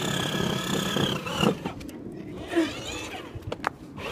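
Electric motor of a battery-powered ride-on toy car whining steadily, cutting off about a second in and winding up again briefly near the middle, with a few clicks near the end. One drive wheel is off the ground, so the motor spins the wheel freely and the car doesn't move.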